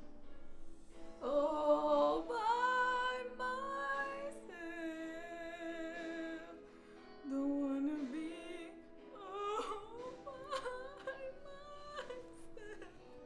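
A woman singing a slow, sustained melody with vibrato over backing music.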